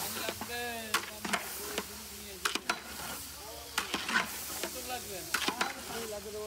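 A long-handled metal spatula stirring thick rice khichuri in a large aluminium pot, scraping and knocking irregularly against the pot, while the steaming rice sizzles.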